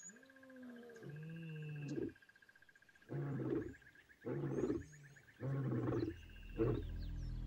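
Lion roaring: long deep moaning calls falling in pitch, then, after a short pause, four short grunts about a second apart, the grunting close of a lion's roar.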